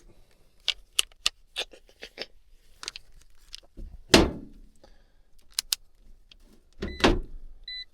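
Scattered light metallic clicks and clatter of tools and test gear being handled, with two louder thumps, one about four seconds in and one near the end, and a brief faint beep just before the end.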